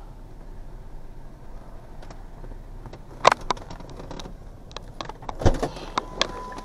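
Pickup truck idling with a low steady rumble, heard inside the cab, over the clicks and knocks of someone moving in the driver's seat. There is a sharp knock about three seconds in, a thump about five and a half seconds in, and a thin steady tone near the end.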